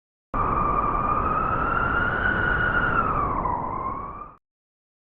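Blizzard wind howling, a loud wavering whistle over a low rumbling gust noise, the pitch sagging near the end before it cuts off abruptly.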